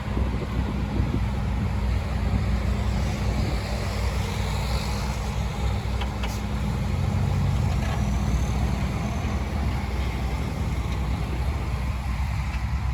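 Heavy diesel engine of earthmoving equipment running steadily with a deep, continuous drone.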